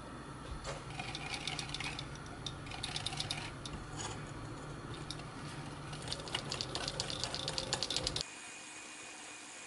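Wire balloon whisk clicking rapidly against a glass mixing bowl in bursts as sugar, melted butter, flour and eggs are beaten together. The clicking stops suddenly about eight seconds in.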